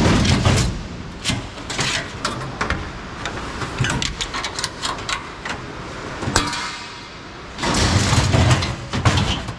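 Scrap metal being pulled off a loaded trailer and handled: a run of separate metal clanks and knocks, with a louder stretch of clattering near the end.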